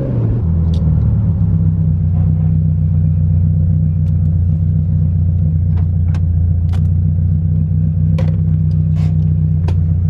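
Subaru WRX's turbocharged flat-four through a straight-pipe exhaust, its revs dropping just at the start and then held steady as a deep, even drone. Scattered faint ticks sound over it.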